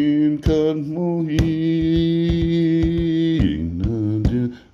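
A man's voice chanting a wordless, melismatic incantation, sliding between notes and then holding one long steady note for about two seconds, before dropping away near the end. Short sharp clicks are scattered through the chant.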